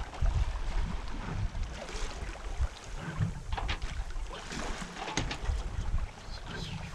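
Wind buffeting the microphone in uneven gusts, with water rushing and splashing along the hull of a Westsail 32 sailboat sailing in a steady breeze.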